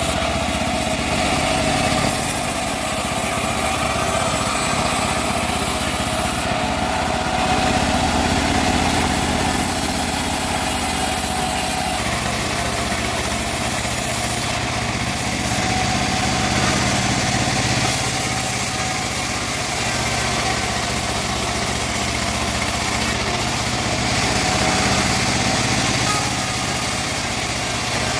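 Homemade bandsaw running steadily while sawing teak wood: a continuous motor drone with the whine of the saw, its tone shifting slightly a few times.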